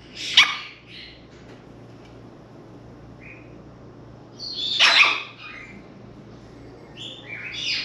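African grey parrot calling: two loud, short calls that sweep downward in pitch, one about half a second in and one about five seconds in, with a few softer chirps in between and near the end.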